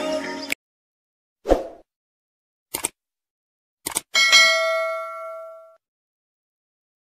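Subscribe-button animation sound effects. The background music cuts off, then a short swoosh and a pair of quick clicks sound. A notification-bell ding follows, ringing out and fading over about a second and a half.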